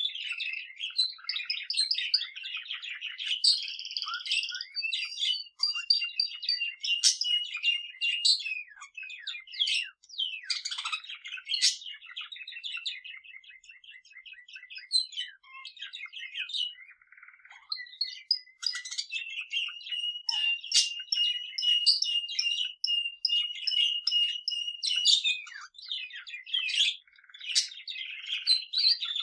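A pet budgerigar warbling and a male canary singing together: continuous high chattering and twittering, with long held trills twice, and a quieter spell about halfway through.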